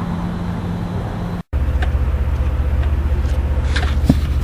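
A steady low hum, cut off by a brief gap of silence about a second and a half in. After the gap comes a vehicle engine idling with a rapid, even low throb and a few faint clicks.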